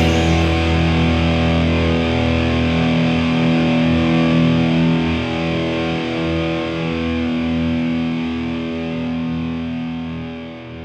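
A final distorted electric guitar chord, struck just before, is left ringing and slowly fades out at the end of a rock song.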